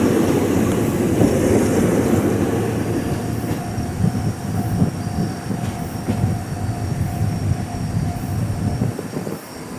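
Ohmi Railway electric train set 901F running away along the track, its wheel and running rumble fading, with a faint steady high whine in the middle.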